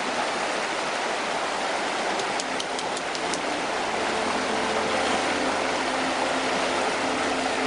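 Steady rush of a swiftly flowing river, the Sespe River, running fast and knee-deep, with a few faint high ticks about two to three seconds in.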